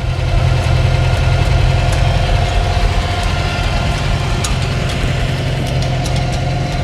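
International 444 tractor engine idling steadily, with a few light clicks in the second half.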